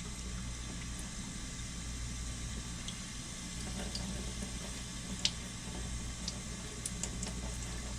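Tap water running steadily into a stainless steel sink while small fish are gutted and rinsed by hand, with a few light clicks, the sharpest about five seconds in.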